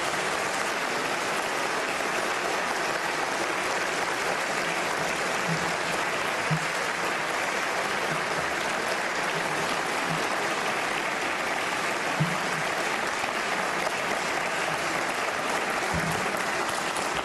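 Steady applause from a large crowd of parliament members clapping together, with the dense clapping sound of a big chamber.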